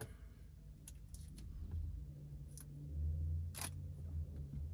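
Quiet handling sounds of a tempered glass screen protector being pressed down and wiped with a microfiber towel on a car's infotainment screen, with a few light clicks, the sharpest about three and a half seconds in, over a low steady hum.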